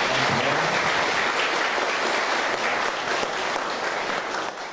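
Audience applauding, a dense, even clatter of many hands clapping that tails off near the end.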